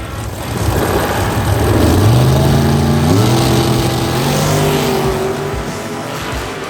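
Drag-racing car accelerating down the strip, its engine pitch rising in steps, loudest about two seconds in, then fading.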